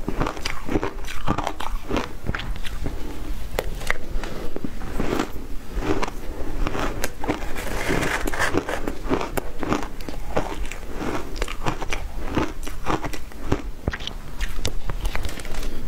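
Mouthfuls of shaved ice being chewed, a dense continuous run of crisp crunches and crackles, picked up by a clip-on microphone close to the mouth.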